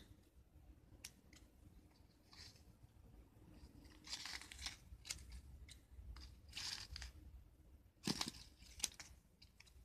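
Scissors cutting through paper with faint rustling and tearing of the paper, in a few short bouts, with two louder sharp clicks near the end.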